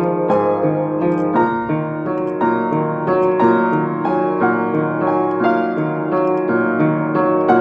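Upright piano played with both hands, a continuous flow of notes and chords struck every fraction of a second and left to ring into one another.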